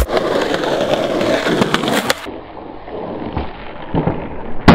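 Skateboard wheels rolling on concrete, with a few sharp clacks of the board. After about two seconds the rolling turns duller and quieter, and a sharp impact comes near the end.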